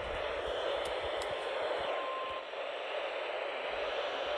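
Steady hiss of static from a weather radio receiver during dead air between transmissions. A faint, brief tone shows about two seconds in.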